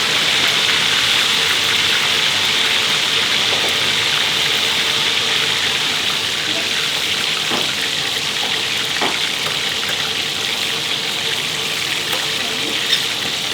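Steady sizzling hiss of crispy beef patties frying in hot oil, with a few faint pops and clinks.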